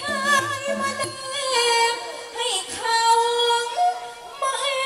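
A woman singing a Thai likay folk-theatre song through a microphone and PA, drawing out long held notes that waver at first and then hold steady, over low backing instruments in the first second.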